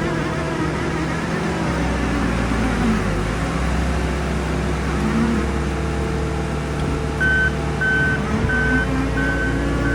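New Holland C362 skid steer's diesel engine running steadily under work, its low drone strengthening a couple of seconds in. About seven seconds in, the machine's backup alarm starts beeping, a single steady high beep repeating a bit faster than once a second, the sign that it is reversing.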